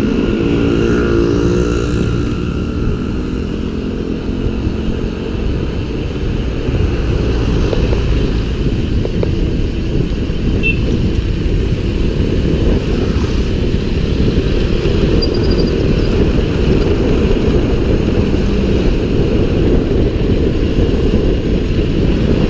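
Wind rumbling over the camera microphone of a moving bicycle: a loud, steady, low rumble.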